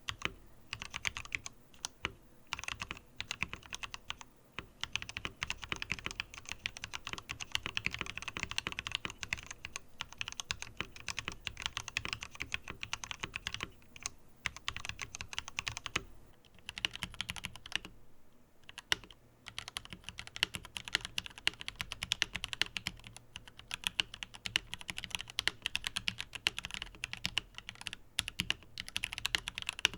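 Fast, continuous typing on a Tom680 mechanical keyboard fitted with aftermarket keycaps, the keys clacking in quick runs. The typing breaks off briefly twice around the middle.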